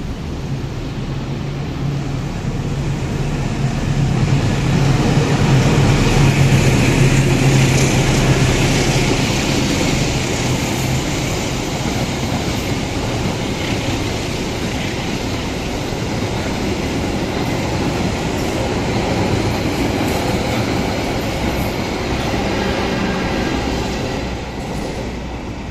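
The Sembrani long-distance express passes at speed without stopping. The diesel locomotive's low engine drone is loudest in the first ten seconds or so. Then the long rake of coaches rumbles and clatters steadily over the rails, easing off near the end.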